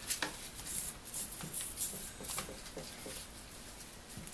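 Quiet rubbing and wiping of a cloth over the housing of a Skil Model 731 rotary hammer being degreased, with a few light clicks and taps as the tool is handled.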